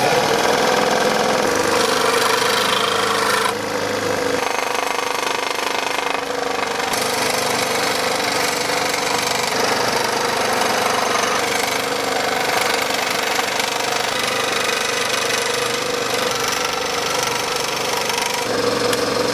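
Scroll saw running steadily, its reciprocating blade cutting through a plastic cutting board. It starts abruptly at the beginning and runs without a break, a little quieter after about three and a half seconds.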